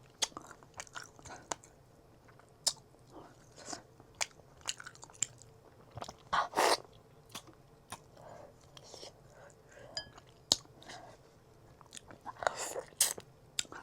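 Close-miked chewing of a home-cooked rice-and-curry meal: scattered wet mouth clicks and smacks, with a louder, longer mouth sound about six and a half seconds in.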